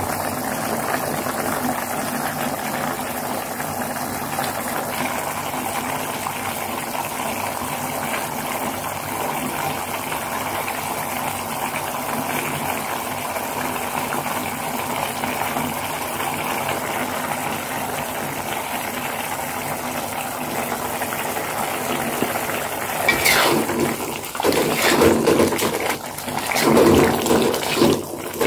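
Chili sauce (sambal) sizzling and bubbling as it fries in oil in a pan, a steady hiss. Near the end a spatula stirs through the thick sauce, with louder, uneven scraping strokes.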